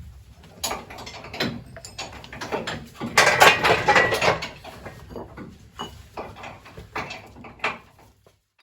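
Irregular metallic clicks, clinks and knocks of tools and engine parts being handled, busiest about three to four and a half seconds in.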